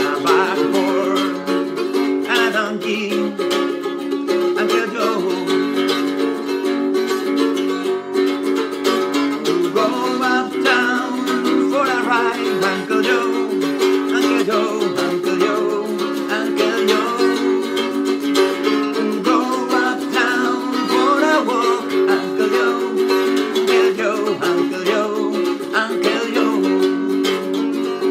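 Mandolin played with steady rhythmic strumming of chords, with a man's singing voice coming in at times over it.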